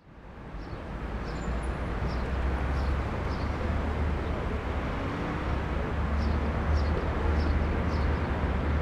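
Outdoor street ambience: a steady low rumble and hiss that fades up at the start, with faint short high chirps now and then.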